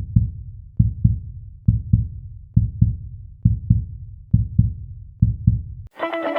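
Heartbeat sound effect: seven deep double thumps, a little quicker than one a second. Near the end it cuts off and guitar music starts abruptly.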